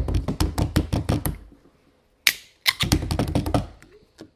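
A fast run of sharp clicks and taps, about eight to ten a second, stopping after about a second and a half. After a short gap there is one louder click, then a second run that fades out.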